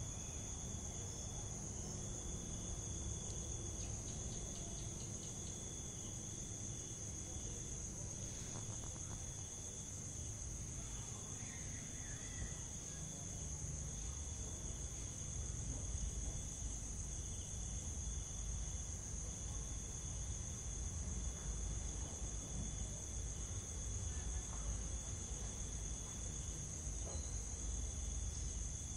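Insects calling in a steady, high-pitched chorus, with a low rumble underneath.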